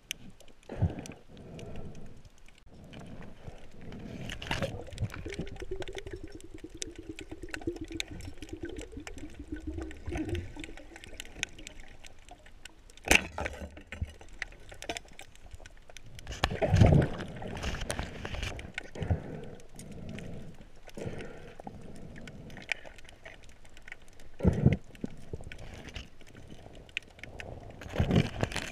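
Underwater sound heard through a submerged camera: water movement and gurgling with scattered clicks and knocks from the spearfisher's speargun and gear. A low hum runs for several seconds about five seconds in, and there are loud thumps in the middle.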